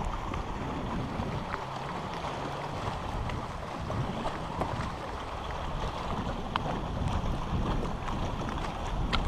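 Wind buffeting the microphone over lapping lake water, a steady low rumble with a few faint, sharp ticks scattered through.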